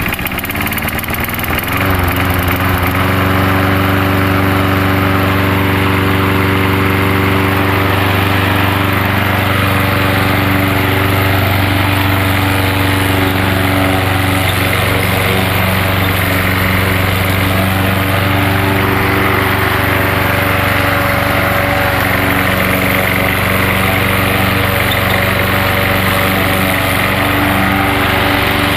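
Gas lawnmower engine running on propane fed into its carburetor intake, picking up speed and getting louder over the first couple of seconds as the propane is adjusted, then running steadily.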